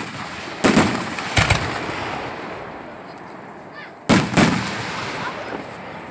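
Aerial firework shells bursting: four sharp bangs in quick succession in the first second and a half, then two more about four seconds in, each fading out slowly.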